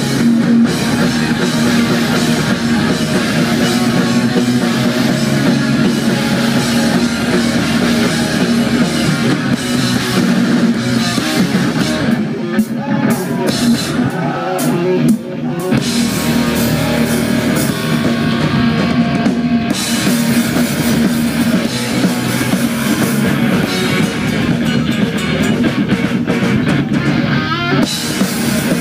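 Live rock band playing loudly through a stage PA: electric guitars over a driving drum kit. The sound thins and drops back briefly about halfway through before the full band comes back in.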